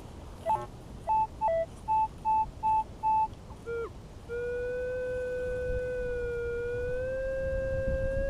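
Minelab CTX 3030 metal detector's audio: a run of short electronic beeps, mostly high-pitched with a few lower ones, about two or three a second, then from about halfway a long continuous tone that edges slightly up in pitch.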